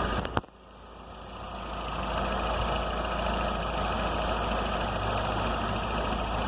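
Car engine idling steadily. About half a second in, a sharp click, and the engine sound drops away abruptly, then swells back over a second or two and runs on steadily.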